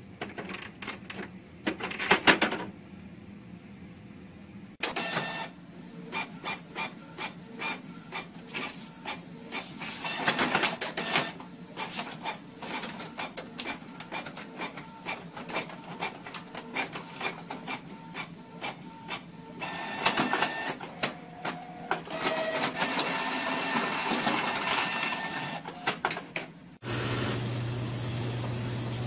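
Home printers running: rapid clicking and whirring of the print mechanism and paper feed, in several short clips. The last clip has a steady low hum.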